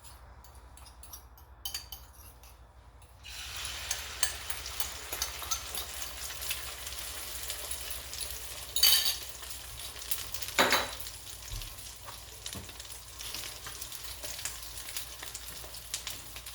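Food sizzling as it fries in a pan of oil, quieter for the first few seconds and then a steady sizzle, briefly flaring louder twice near the middle.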